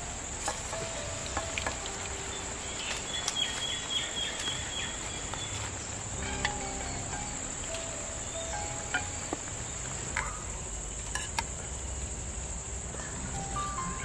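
Steady high-pitched insect drone, with scattered light clicks of spoons against a metal pan and bowl.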